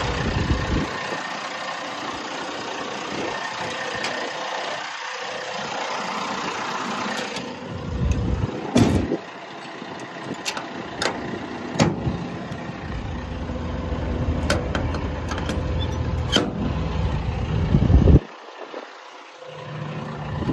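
Hitachi ZX160LC-6N excavator's diesel engine idling, loud at first, then quieter about seven seconds in. Several sharp clicks and knocks of metal panels and latches are heard over it, and the engine sound drops off abruptly near the end.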